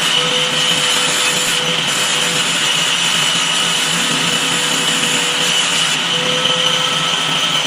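Homemade table saw running steadily while its blade cuts through a wooden cabinet door panel to raise it, with a steady whine over the cutting noise.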